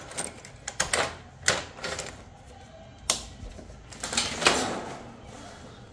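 Sharp clicks and knocks of a hand working the Bajaj Pulsar 220's ignition key and controls, a few at irregular intervals, the loudest about three seconds in. The engine is not yet running.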